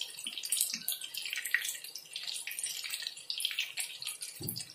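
Marinated chicken pieces deep-frying in hot oil in a kadai: sizzling with a dense, irregular crackle of pops. A single dull knock sounds near the end.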